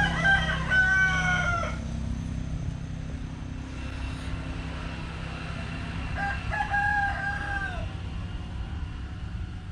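A rooster crows twice: one crow right at the start and another about six seconds in, with a steady low hum underneath.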